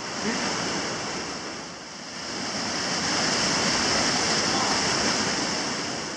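Whitewater rapids rushing: a loud, steady roar of churning water that dips slightly about two seconds in, then swells louder again.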